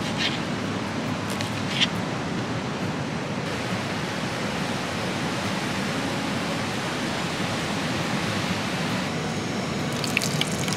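Steady rush of a river running close by. Two sharp knife taps on a wooden chopping board come about a quarter second and about two seconds in, and a few light clicks come near the end.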